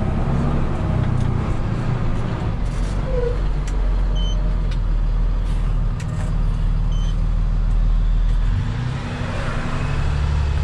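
Rollback tow truck driving at highway speed, its engine running steadily under road noise inside the cab.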